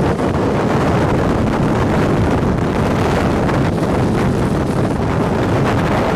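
Strong wind blowing on the microphone: a loud, steady rush with no break.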